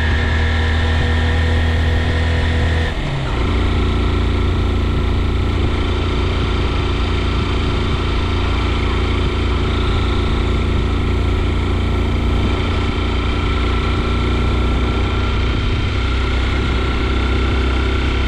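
Vehicle engine running while driving up a road, over a heavy low rumble. Its pitch drops abruptly about three seconds in, with a brief dip in level, and then holds steady.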